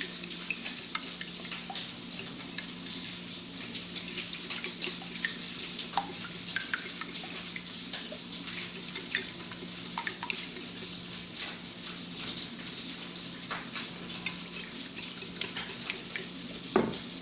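Wire whisk beating eggs in a ceramic dish, with many light irregular clicks and scrapes against the dish, over a steady sizzle of sausage frying in a skillet. A louder knock comes near the end.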